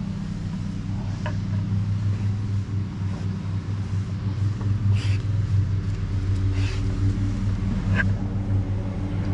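A steady low mechanical hum at an even pitch, with a few brief sharp sounds over it.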